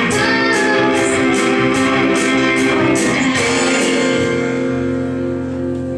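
Live rock band of electric guitars, bass guitar, drums and keyboard playing the closing bars of a song. The drums keep a steady beat until about halfway, then the band holds a final chord that rings on.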